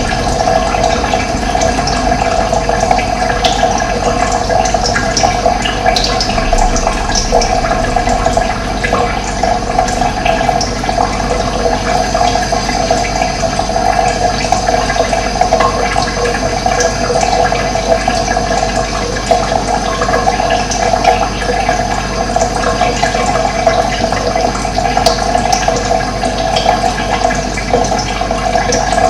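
Running water in a steady, unbroken rushing flow, with occasional faint bird chirps over it.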